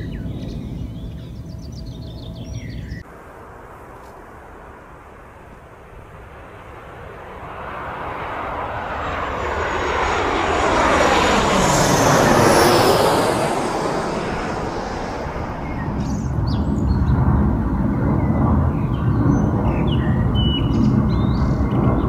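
An airplane passing overhead: its rushing noise swells over several seconds to a peak about halfway through, its tone sweeping down and then back up as it passes, and then eases off into a lower, steadier noise.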